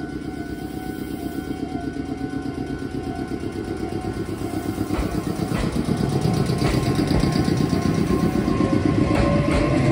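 Meitetsu electric commuter train pulling out of a station: the running noise grows louder as it gathers speed, with wheel knocks over the rail joints from about halfway, and a motor whine rising in pitch near the end.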